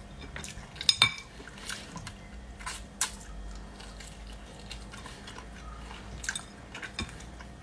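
Close-up eating sounds of cooked hermit crab: shell pieces cracked and pulled apart by hand and bitten, with scattered sharp cracks, the loudest about one and three seconds in, between soft wet chewing.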